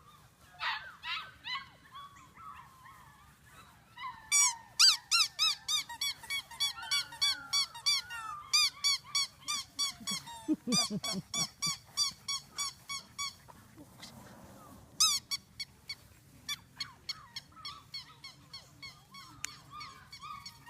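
Labrador puppies yelping and squeaking in a long, rapid run of short high-pitched cries, a few a second, with a lower cry about halfway: a litter clamouring for attention.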